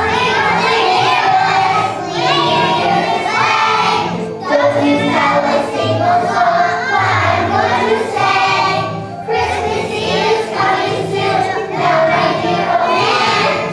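Choir of young children singing a song with instrumental accompaniment underneath, the sung phrases breaking every second or two.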